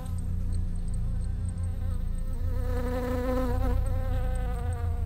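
Background music: one buzzy, high held note that wavers slightly in pitch, over a steady low bass.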